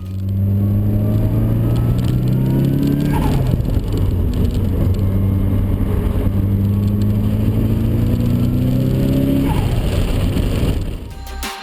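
Car engine accelerating: its note climbs for about three seconds, breaks briefly at a gear change, then climbs again for several seconds before easing off near the end.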